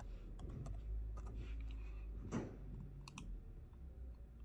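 Computer keyboard and mouse clicks: a quick run of key taps in the first second, a few scattered clicks, then a close pair of sharp clicks about three seconds in. A steady low hum sits underneath.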